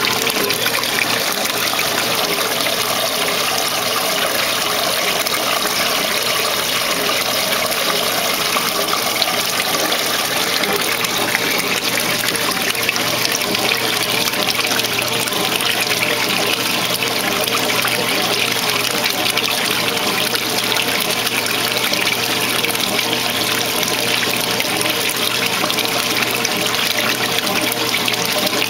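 Water gushing steadily into the tub of a 1968 Kenmore 900 Series top-load washer as it fills, splashing onto the wet clothes.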